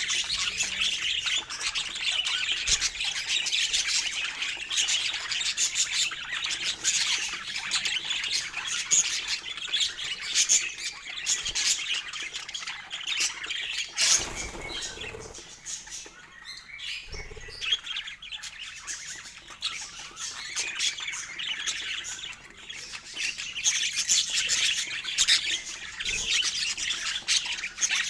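A flock of budgerigars chattering and squawking without pause, a dense mix of chirps and warbles. It thins for a few seconds after a short rustling noise about halfway through.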